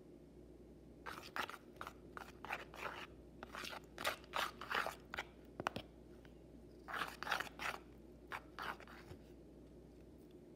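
Thick shampoo-and-salt slime being stirred and folded with a plastic knife in a plastic bowl, giving irregular sticky squelches in short bursts, with a pause about six seconds in.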